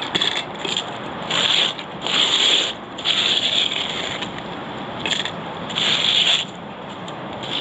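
High-pressure water from a drain jetter's hose spraying in repeated short hissing bursts, each half a second to a second long, over a steady background of machine noise, as the manhole and drain camera head are washed down.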